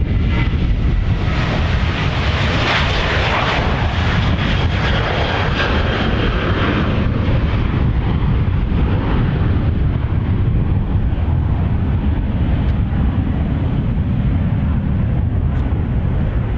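Airliner's engines passing by: a heavy, steady rumble with a rushing whine that swells a few seconds in, then fades as the aircraft moves away.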